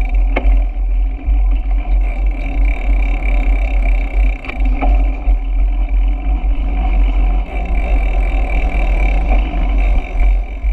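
Wind buffeting the microphone of a bicycle-mounted camera while riding, a loud uneven rumble, mixed with road and bike noise. Two brief clicks, about half a second in and about four and a half seconds in.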